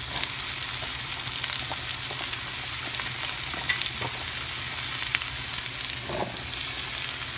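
Sliced tindora (ivy gourd) pieces sizzling steadily in hot oil in a frying pan, with a few light clicks.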